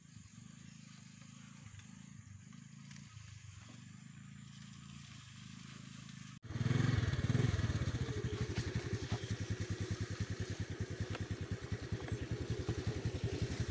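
Honda Dio scooter's single-cylinder four-stroke engine running as it rides over a grassy trail. About six seconds in, the sound cuts and becomes much louder and closer, an even rapid pulsing heard from on the scooter itself.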